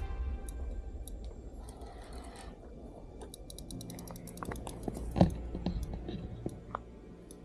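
Spinning fishing reel ratcheting in a rapid run of clicks, about seven or eight a second, while the rod is bent under a hooked sturgeon. A single louder knock comes about five seconds in.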